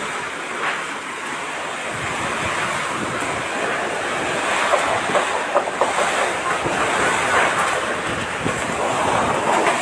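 Typhoon wind blowing hard, a steady rushing noise with gusts buffeting the microphone, growing a little stronger after about two seconds.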